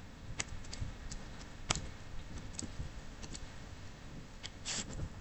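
Typing on a computer keyboard: a scatter of single keystroke clicks at uneven spacing over a low background hum.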